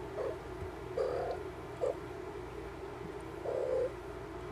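Newborn kittens mewing: four short, low cries, the second and fourth a little longer than the others.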